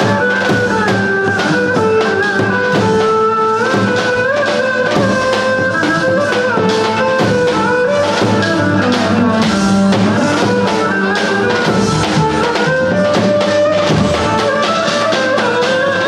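Music with a quick, steady drum beat under a melody that steps from note to note.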